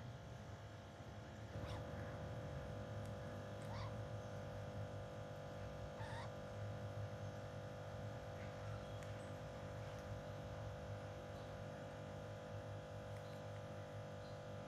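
A pet conure giving a few brief, faint chirps, spaced a couple of seconds apart, over a steady electrical hum.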